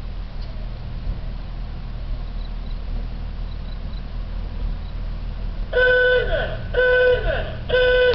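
Brill railcar's horn sounding short blasts, about one a second, starting near the end: three blasts, each about half a second long, over a steady low rumble.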